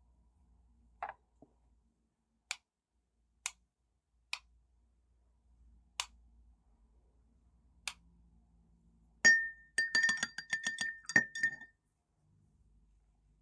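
A few single light taps, then, about nine seconds in, some two and a half seconds of rapid clinking with a clear ringing tone: paintbrushes rattled against a glass water jar, the glass ringing.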